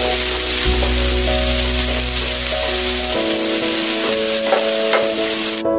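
Chopped onion and garlic sizzling steadily in hot oil in a non-stick frying pan, over background music.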